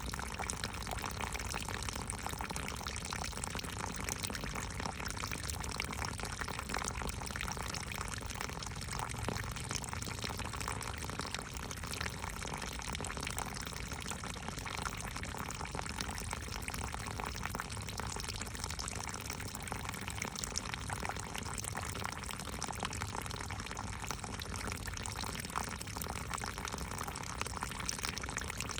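Steady rushing water: an even, unbroken hiss with no distinct splashes or drops standing out.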